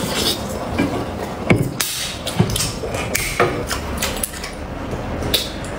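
Close-miked eating sounds: a man chewing and smacking on meat, with irregular wet clicks and knocks.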